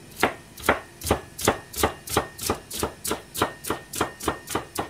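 Kitchen knife slicing a carrot into thin strips on a plastic cutting board: a steady run of sharp knocks on the board, about three a second, quickening slightly toward the end.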